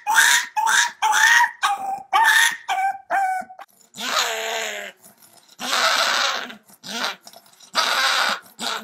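A puppy gives a quick run of short, high yelping calls, about two or three a second, stepping down in pitch. About three and a half seconds in they stop, and a pug growls in four longer raspy bursts with a chew in its mouth.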